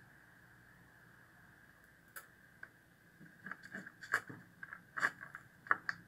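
Hands handling metal wire and small parts: irregular light clicks and rattles, starting about two seconds in and coming thicker in the second half, over a faint steady high-pitched hum.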